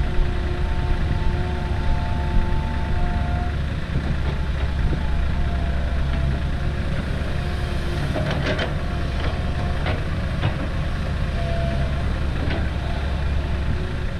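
Komatsu hydraulic excavator's diesel engine running steadily under load, with a whining tone over the first few seconds as the arm works. About eight seconds in, a bucketful of earth and rocks is dropped into the steel bed of a dump truck, giving a quick series of knocks and clatters, with one more knock a little later.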